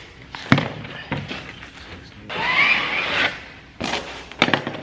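Tools and foam insulation sheet handled on a wooden workbench: a sharp knock about half a second in, a squeaky rubbing sound lasting about a second in the middle, then a few clicks and knocks near the end.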